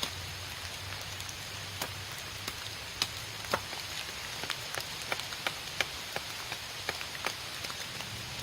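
Rain falling steadily, with a constant hiss and irregular sharp ticks of drops striking close by.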